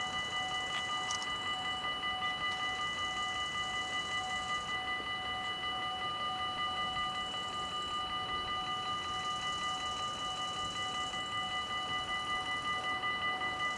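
Dutch level-crossing warning bells (AHOB half-barrier crossing) ringing continuously in a rapid, even pulse, several bells sounding together: the crossing is closed for an approaching train.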